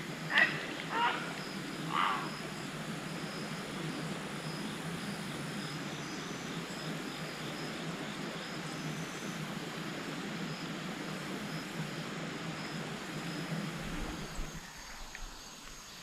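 Steady outdoor background hiss beside a creek, with four short voice-like calls in the first two seconds. The hiss drops away about fourteen seconds in.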